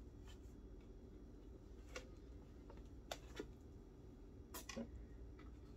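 Near-quiet kitchen with a handful of faint, short clicks and light knocks, about five spread over a few seconds, as things are handled at a counter.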